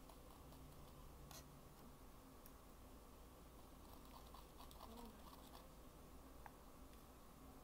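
Near silence, with faint light ticks and scratches of a wooden toothpick dabbing colored chocolate into a clear plastic lollipop mold. One sharper click comes about a second and a half in, and a few small ticks come near the middle.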